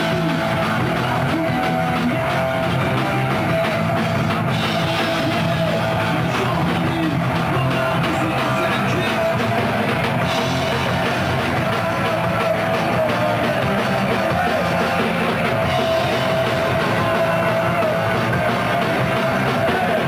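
A punk rock band playing live: electric guitar through a Marshall amplifier, drum kit and a singer at the microphone.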